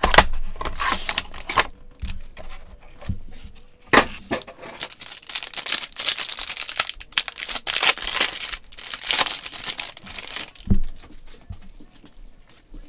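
Foil trading-card pack wrapper crinkling and tearing as gloved hands rip it open, in several bursts of rustle, with a soft knock near the end.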